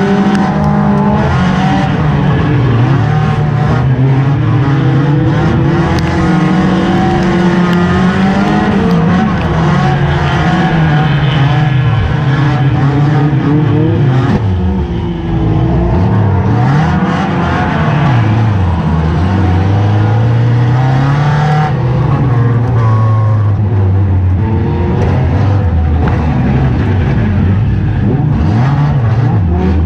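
Ford race car's engine heard from inside its stripped-out cabin, revving up and falling back over and over as the car is driven hard round the track. About halfway through the engine briefly drops off the throttle.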